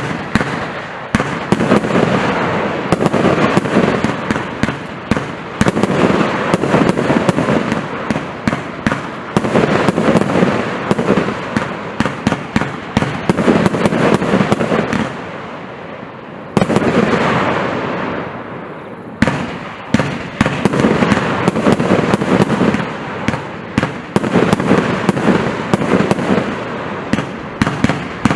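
'The Jungle' consumer firework compound firing: a dense, continuous stream of rapid bangs and crackling shots. The barrage eases briefly twice past the middle, then picks up again.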